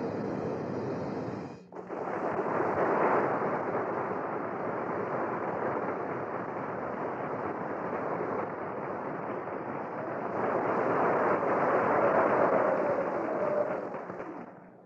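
Loud, dense dramatic music curtain ending an act, with a brief drop about a second and a half in; it fades out near the end.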